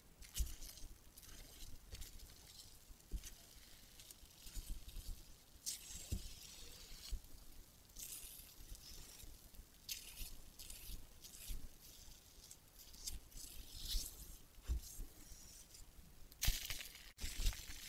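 Cleanser foam being brushed across a mannequin's face with a flat facial brush: soft, irregular hissy strokes of lather, with a louder swish near the end.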